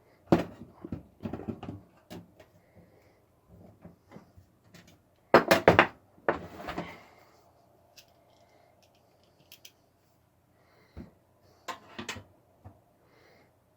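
Computer parts being handled and pushed into place inside a PC case: irregular knocks, clunks and scrapes, the loudest cluster about halfway through.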